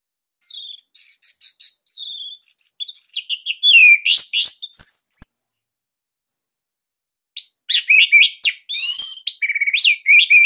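Orange-headed thrush (Bali anis merah) singing: two bursts of rapid, varied high whistled phrases with quick rising and falling glides, about two seconds of silence between them.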